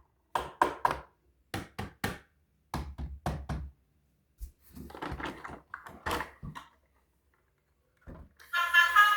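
A run of sharp knocks and taps in quick clusters of two or three, then a rougher patch of handling noise. Music starts just before the end.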